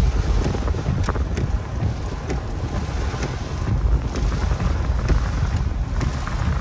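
Rain hitting the windshield and roof of a moving car in scattered ticks, over a steady low rumble of road and cabin noise on wet pavement.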